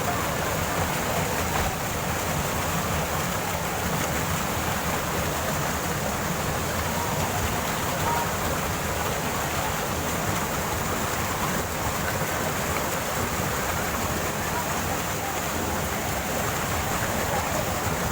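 Waterfall water rushing steadily, an even, unbroken wash of noise.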